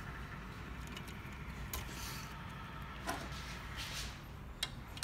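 A few faint clicks and light handling noises over a steady background hiss, from hands working on the 3D printer's cables and bracket.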